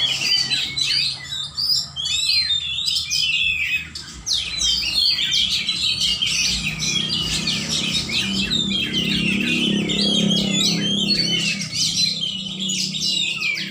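Caged songbirds singing: rapid, overlapping chirps, trills and whistles from several birds, with no break. A low hum sits underneath in the second half.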